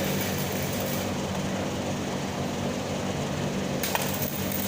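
Stick welding arc crackling steadily over a low, steady hum.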